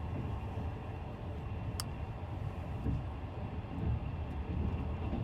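Steady low rumbling noise, with a single sharp click about two seconds in.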